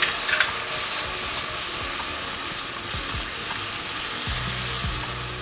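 Tomato pizza sauce sizzling in a nonstick frying pan on a gas burner while a spatula stirs it through the pan.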